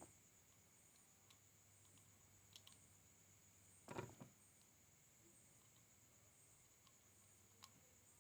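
Near silence with a few faint clicks and taps of small parts of a vape mod being handled, the loudest about four seconds in.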